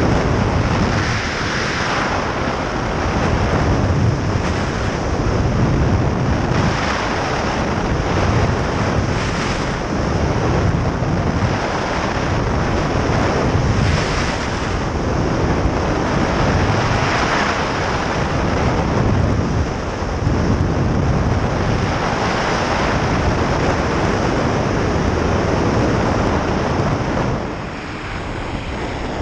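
Heavy wind buffeting the action camera's microphone from the airflow of a fast speedflying descent, surging every second or two and easing a little near the end.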